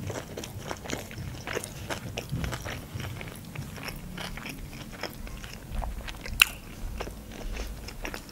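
Close-miked chewing of a mouthful of food with the mouth closed: soft, wet crunching and small mouth clicks, with one sharper click about six seconds in.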